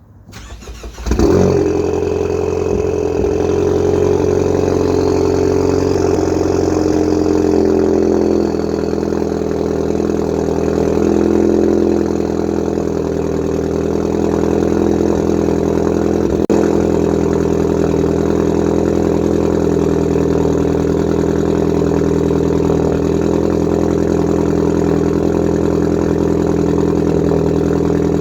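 Ford Focus ST's turbocharged engine cold-starting through a catless downpipe and custom exhaust: a brief crank, the engine catches about a second in with a loud flare, then settles into a steady, loud cold idle. A single sharp click sounds around the middle.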